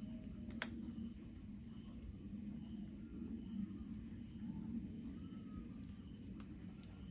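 Crickets trilling steadily over a low rumble, with one sharp click just over half a second in and a fainter click near the end.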